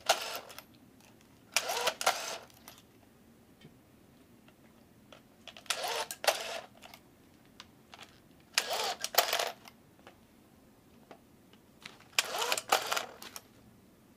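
Battery-powered hand-held twist tie machine running through its tying cycle about five times, each a short whirring buzz of roughly a second as its motor twists a tie around the bundle, with quiet gaps of two to three seconds between.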